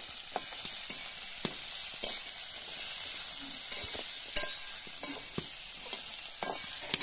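Sliced white radish sizzling in hot oil in a metal kadhai as it is stir-fried, with a steady hiss. A metal spatula scrapes and knocks against the pan every second or so.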